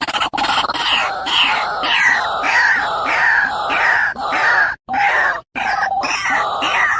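A bird calling over and over, short harsh notes that each slide down in pitch, about two or three a second, with a few sudden breaks near the end.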